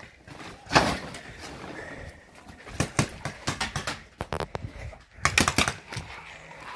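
Paintball markers firing: one sharp pop about a second in, then scattered pops and a quick burst of several about five seconds in.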